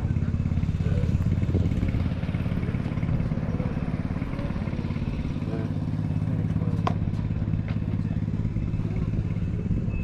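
An engine idling steadily, a low even running sound that does not change, with a single sharp click about seven seconds in.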